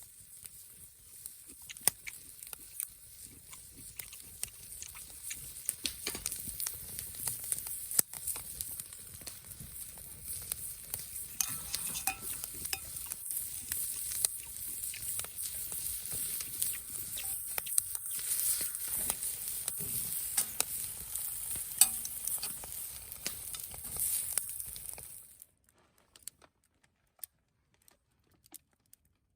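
Food frying in hot oil, a steady sizzle full of sharp crackles and pops that grows louder, then cuts off suddenly about 25 seconds in. Only a few faint clicks follow.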